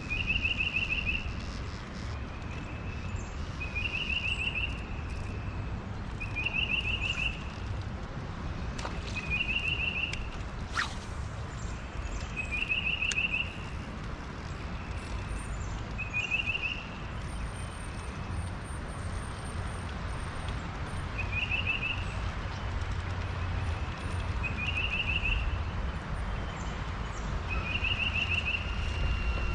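A songbird repeating the same short song about nine times, every three to five seconds: a faint lead-in note, then a quick run of bright notes lasting about a second. A steady low rumble lies underneath.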